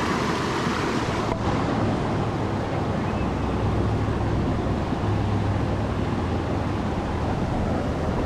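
Steady rush of river water flowing past, an even noise with a low rumble underneath.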